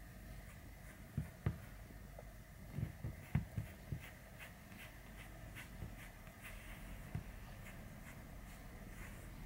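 Grooming brush drawn through a cat's fur in short, scratchy strokes, about two a second. There are a few soft low thumps in the first four seconds.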